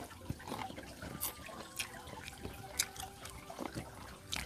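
People eating: faint wet chewing and smacking, with a few sharp light clicks.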